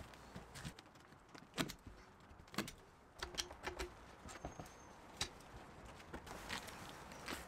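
A few faint, scattered clicks and taps of hand tools and a tin being handled while a roof edge is coated with bitumen mastic.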